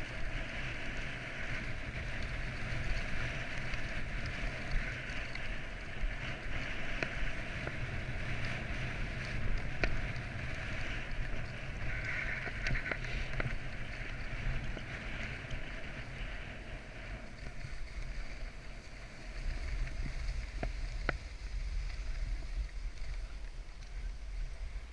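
Skis hissing steadily through snow on a downhill run, with wind buffeting the microphone in a low rumble.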